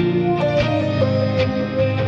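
Instrumental background music with a steady beat and held melody notes.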